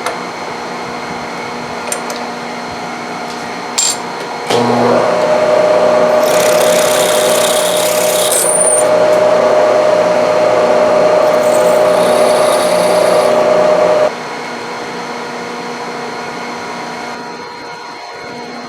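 Bridgeport-head milling machine running with a drill bit cutting into a small metal block. About four seconds in, the drilling load begins with a louder, steady tone and two stretches of high scraping noise, then it drops back to the plain running hum near the end.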